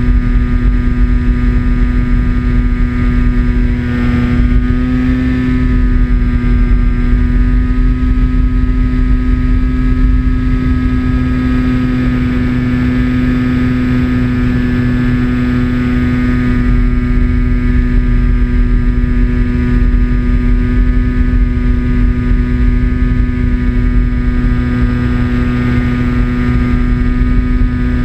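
RC model aeroplane's motor and propeller running at a steady pitch in cruise, wavering briefly about five seconds in, with low wind rumble on the onboard camera's microphone.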